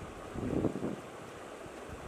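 Wind buffeting the microphone, a low rumble that swells in a gust about half a second in.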